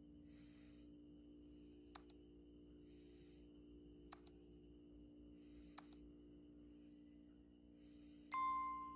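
Mouse-click sound effects from a subscribe-reminder animation: three sharp double clicks about two seconds apart, then a bright bell chime for the notification bell near the end that rings and fades, over a faint steady hum.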